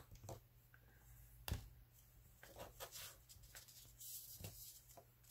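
Faint handling of Copic markers and a small paper scrap on a cutting mat: a sharp click about a second and a half in, and soft paper rustling near four seconds.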